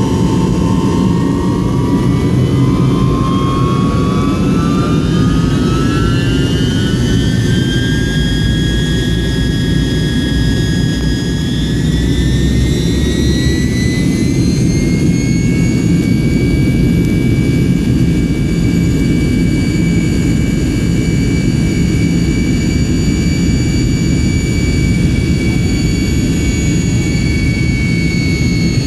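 Tupolev Tu-154M's rear-mounted Soloviev turbofans running, heard from inside the cabin: a loud rumble under a turbine whine that climbs steadily in pitch over the first fifteen seconds or so as the engines spool up, then holds steady.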